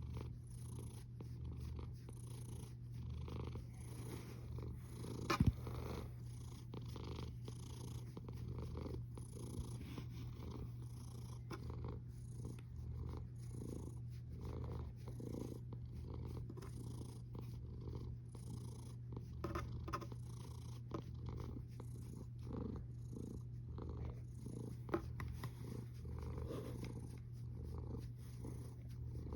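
Sleeping cat snoring, a low steady sound that swells and fades with each breath, a little more than once a second. A sharp click about five seconds in.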